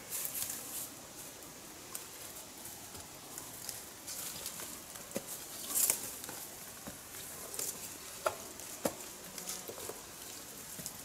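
Rustling and scraping as a man climbs a tree-stand ladder against a tree, brushing through branches and handling rope and strap, with a few sharp clicks and knocks scattered through it.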